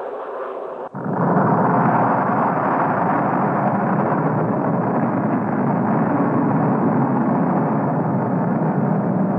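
Nuclear explosion sound on an old film soundtrack: a steady noise cuts out abruptly about a second in. A louder, steady, deep rumble follows and holds without a break.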